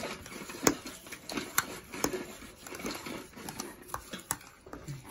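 Spoon stirring halo-halo in a glass: irregular sharp clinks and knocks of the spoon against the glass and ice, a few each second, with light scraping between.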